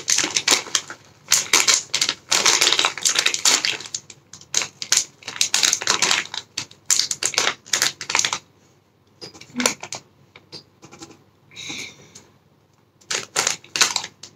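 Plastic instant-noodle wrapper crinkling and tearing as it is pulled open by hand. The crackling comes in dense irregular bursts, thins out after about eight seconds, and picks up again briefly near the end.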